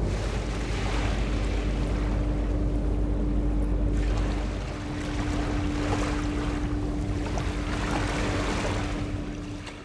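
Small waves washing onto a sandy river shore, rising and falling in swells, with wind rumbling on the microphone for the first half. A thin steady hum runs underneath, and the sound fades out at the very end.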